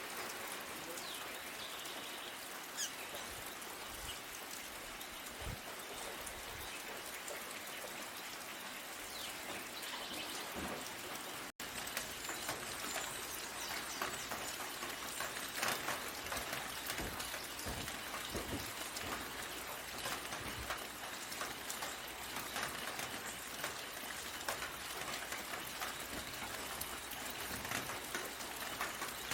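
Steady rain falling on leaves, a continuous hiss dotted with the patter of individual drops. It breaks off for an instant about eleven seconds in, then carries on.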